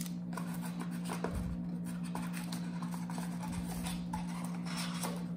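Light handling sounds: hands shifting a phone charger and cable on a clear plastic tray and reaching into a cardboard phone box, with scattered soft rustles and taps over a steady low hum.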